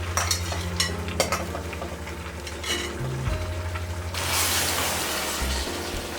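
Food sizzling in a frying pan while a utensil stirs and clinks against it, with sharp clicks in the first three seconds. From about four seconds in the sizzle becomes a louder, denser hiss. Background music with steady low notes plays underneath.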